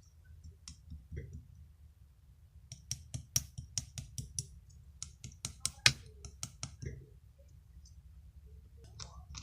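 Irregular light clicks and taps, thickest in the middle few seconds, over a low steady hum.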